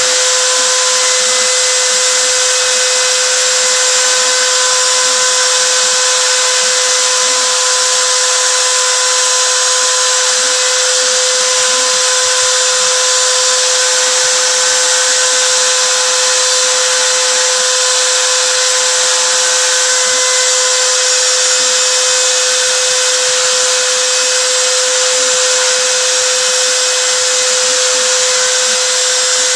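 CNC router spindle running at steady speed while engraving, a constant high whine over dense hiss.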